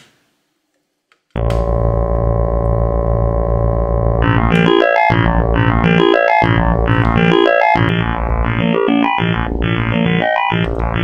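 Make Noise Spectraphon synthesizer module in spectral amplitude modulation mode. After a near-silent start, a steady drone comes in abruptly about a second in. From about four seconds in it turns brighter and steps quickly through changing tones, driven by stepped, sequenced modulation, with short drop-outs between steps.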